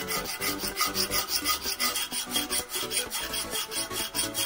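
Flat hand file scraping back and forth along the rusty steel handle of old reinforcement (rebar) pliers held in a vise, in quick repeated strokes that take off rust and old surface.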